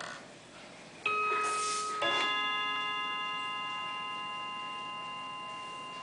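Schatz & Söhne mechanical wall clock striking the half hour as its minute hand is turned to it: a small click, then two ringing notes about a second apart that ring on and fade slowly.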